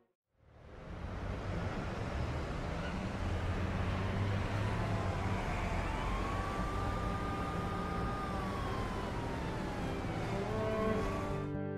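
Steady city traffic noise from passing cars, fading in about half a second in. A distant siren slowly rises, holds and falls through the middle.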